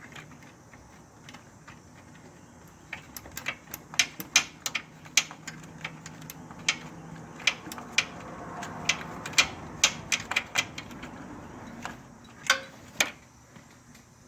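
Ratchet wrench clicking in short, irregular strokes as a tight starter bolt is worked loose, with a few metal taps from the tool near the end.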